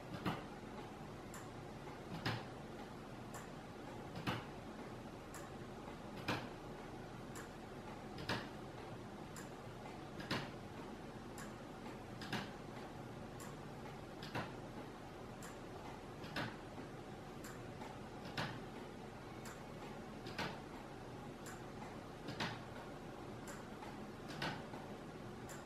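Wooden gear clock's wooden detent escapement, in a tourbillon cage, ticking steadily: a louder tick about every two seconds with a fainter tick midway between.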